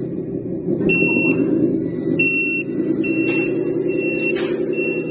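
The RC truck's onboard sound system plays a steady simulated diesel engine idle, over which five short, high electronic warning beeps sound about one a second.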